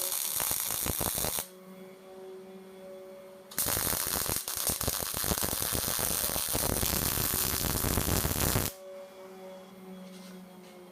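Arc welding: two runs of crackling, sputtering weld that switch on and off abruptly, the second about five seconds long, with the welding machine humming steadily in between.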